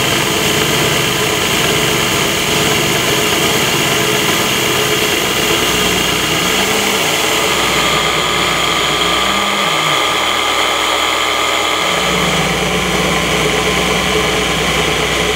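Belt-driven spindle of a CNC-converted benchtop mill running at high speed while an end mill clears aluminium, a loud, steady cutting and machine noise. Under it, a lower tone glides up and back down in pitch three times, in the second half.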